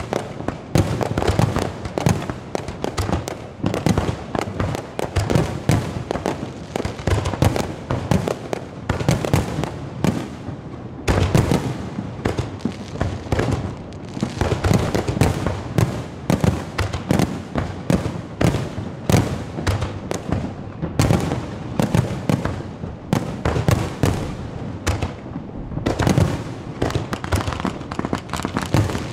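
Aerial firework shells bursting in a dense barrage, several bangs a second overlapping into continuous booming.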